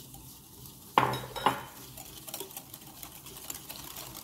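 Wire whisk stirring brown sugar into beaten eggs and oil in a glass mixing bowl. It strikes the bowl sharply twice about a second in, then keeps going with lighter taps and scrapes against the glass.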